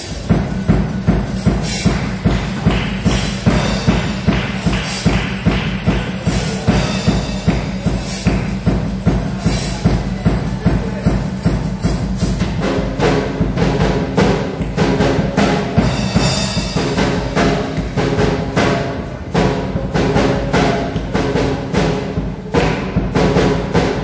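Live church band music played on a drum kit with a steady, even beat. About halfway through, sustained pitched instrument notes join the drums.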